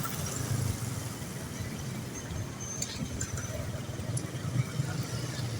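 Road traffic: a low, steady engine rumble from passing vehicles, with a few faint high chirps and ticks.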